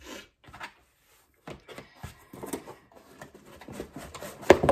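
Cardboard box being handled and its flaps pulled open: scattered scraping and rustling of cardboard, with a loud thump about four and a half seconds in.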